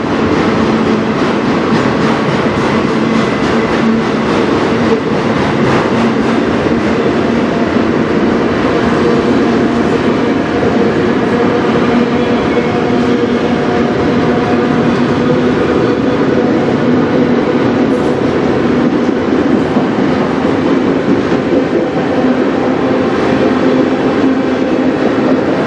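Autorack freight cars rolling past close by: the steady, loud rumble and clatter of steel wheels on rail, with a steady hum running under it.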